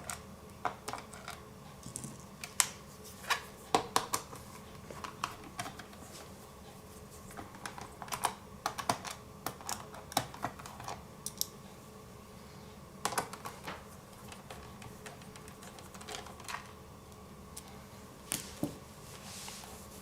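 Irregular small clicks and taps of a screwdriver working the screws out of a laptop's plastic bottom cover, with light knocks as the laptop is handled.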